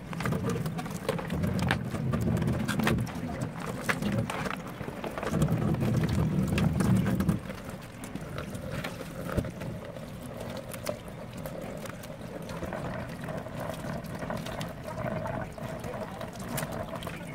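Kitchen tap water running and splashing onto raw prawns in a plastic tray over a stainless-steel sink. It is louder for the first seven seconds or so, then softer, with scattered small clicks and knocks from handling.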